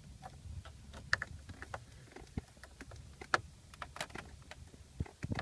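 Scattered small plastic clicks and taps of a dashboard heater control knob being fitted and pressed onto its shaft, over a low rumble.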